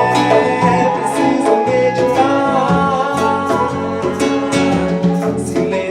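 Live band music: a man singing in Portuguese over strummed acoustic guitar, with a steady rhythm.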